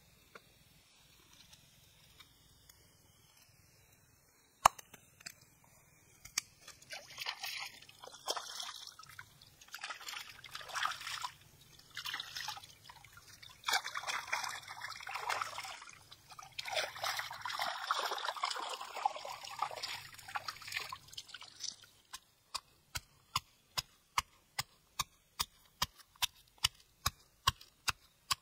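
Stream water splashing and trickling as skewered fish are swished and rinsed by hand in a shallow stream. About 22 seconds in, it gives way to a stone pestle pounding fresh red chillies, a steady run of sharp knocks about three a second that grow louder.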